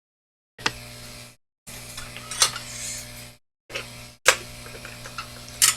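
Small metal tool clicking and tapping against a phone circuit board in a few sharp ticks, over a low steady electrical hum that cuts in and out.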